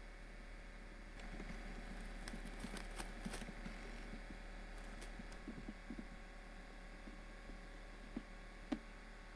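Faint steady hum with a patch of light clicks and knocks a second or so in, and two sharp clicks near the end.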